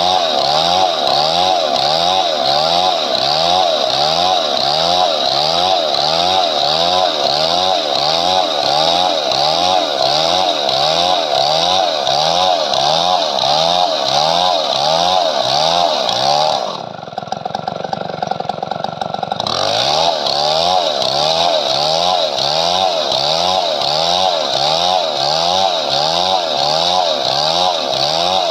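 Chainsaw running and cutting wood, its pitch rising and falling in a steady cycle of under a second. About two-thirds of the way through it drops and thins out for a few seconds, then picks back up.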